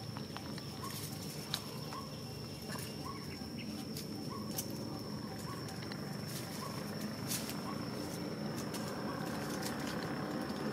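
Outdoor ambience: a steady high-pitched insect drone, with faint short chirps repeating roughly once a second and a few scattered clicks.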